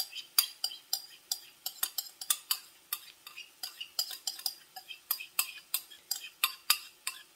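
A spoon scraping and knocking inside a can of condensed tomato soup to get the last of it out, a quick uneven series of sharp metal clicks, about three or four a second.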